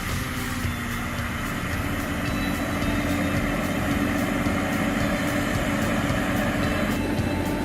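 Engine of a compact forestry processing machine running steadily under load, a constant mechanical drone with a held hum that sets in about a second in.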